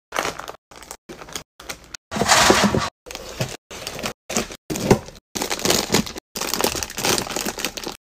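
Plastic snack wrappers crinkling and rustling as wrapped packs are handled and set into plastic storage baskets. The sound comes in short noisy bursts, cut apart every half second or so by abrupt dead silences.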